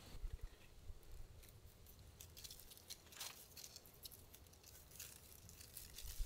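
Faint handling sounds of repotting: potting soil tipped from a metal trowel into a burlap-lined basket, then soft rustling and scattered small ticks as the plant and its root ball are set in and firmed.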